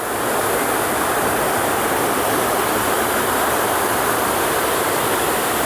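Waterfall rushing: a steady, loud, even noise of falling water.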